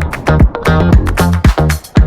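Dance music with a steady, fast beat of heavy bass thumps and bright percussion, with guitar-like plucked notes.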